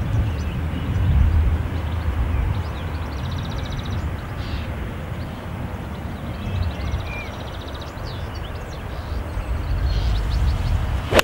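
Wind buffeting the microphone: a low rumble that swells and eases, with faint high chirps of small birds or insects over it. A single sharp click comes right at the end.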